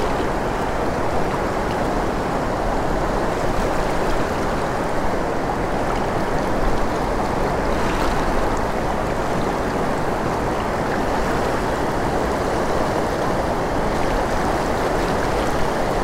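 River water rushing steadily around a wading angler's legs, a constant even rush with no breaks. The microphone sits just above the water surface.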